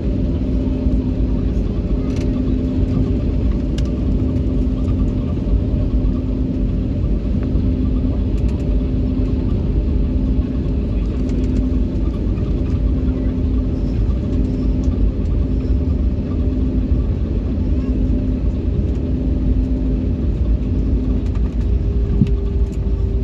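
Airliner cabin noise: a steady, loud low rumble of the jet engines and the aircraft moving on the ground, with a hum that pulses on and off about once a second. A new tone rises near the end, as the engine note begins to climb.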